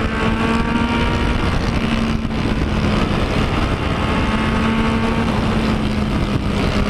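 Yamaha MT-09 inline-three engine pulling at a steady speed on the highway, its note held almost level, under a heavy rush of wind and road noise.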